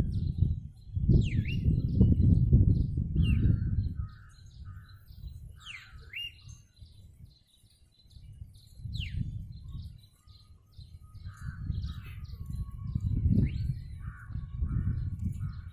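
Several birds chirping and calling: quick high chirps, a few falling whistles, and runs of short rough calls. Under them a loud low rumble comes and goes in waves.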